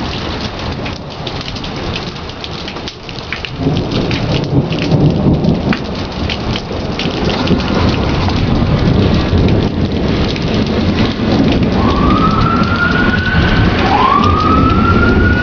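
Heavy rain falling steadily, with a long rolling rumble of thunder building from about four seconds in. Near the end an approaching emergency-vehicle siren wails twice, each wail rising in pitch.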